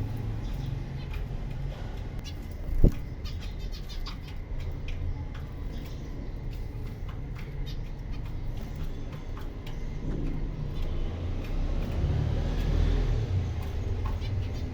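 Zebra finches calling, a continual scatter of short, sharp chirps over a steady low rumble, with one loud thump about three seconds in.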